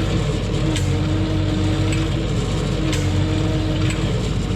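LS compact tractor's diesel engine running steadily while it drives the winch, with a sharp metallic click about once a second.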